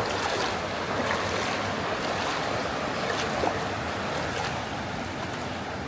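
Steady sloshing and rushing of floodwater on a street after heavy rain, an even wash of noise with a few small splashes.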